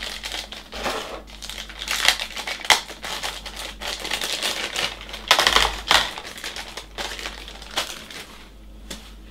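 Plastic kit packaging crinkling as small RC car parts are handled by hand, with irregular crackles and small clicks that come in bunches.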